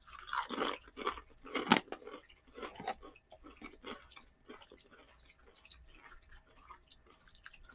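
A person biting into and chewing a Pringles sweet potato crisp: a few sharp crunches in the first two seconds, then chewing that grows fainter.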